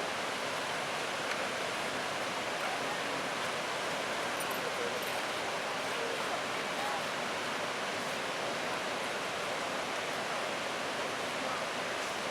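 Steady, unbroken rush of white water running at a record snowmelt flow.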